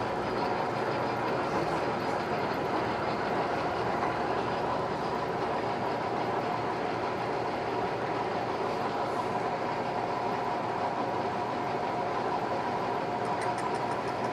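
American Pacemaker engine lathe running steadily with its large chuck spinning the workpiece, a constant hum and whine from the spindle and gearing, with no cut being taken yet.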